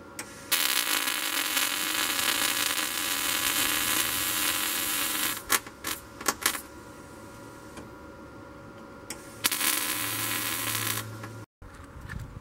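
Electric arc welder crackling as it welds a steel grate frame. It runs one weld of about five seconds, then a few short taps, then a second weld of about a second and a half, and cuts off abruptly near the end.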